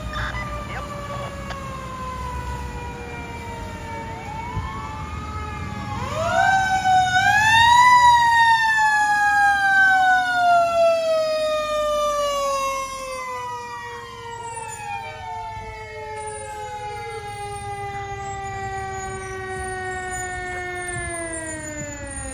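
Fire engine siren winding up twice, loudest about six to twelve seconds in, then slowly falling in pitch for the rest of the stretch. A second siren's short up-and-down sweeps sound over it.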